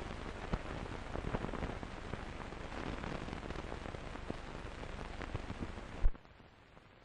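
Crackle and hiss of an old film soundtrack running over the leader, thick with small pops and clicks. A sharp pop comes about six seconds in, after which only a faint hiss remains.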